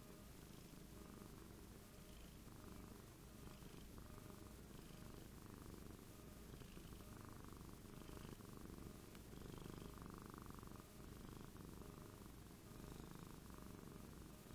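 Domestic cat, an orange tabby, purring faintly and steadily, with soft swells in the purr.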